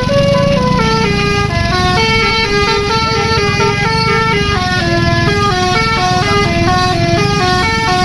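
Bus telolet musical air horn (basuri type) playing a melody, the notes stepping up and down several times a second, over the bus engine's low rumble.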